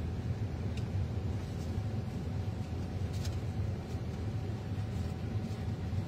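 Steady low rumble of a car's cabin with the car running, with a faint steady hum and a few faint ticks.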